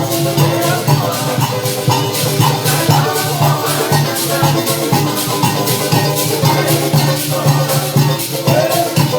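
Parang band playing: a quick, steady rhythm from shakers and percussion over a continuous bass line, with strings carrying the melody.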